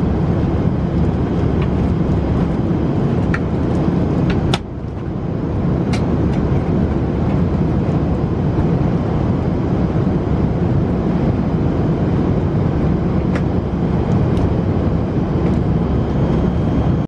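Steady drone of engine and airflow noise inside an airliner cabin, with a few faint light clicks. The drone dips briefly about four and a half seconds in.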